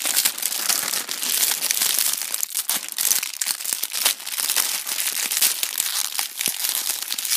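Shiny plastic snack wrappers of Bimbo Nito packets crinkling and crackling as they are handled and turned over, a continuous busy rustle of small crackles.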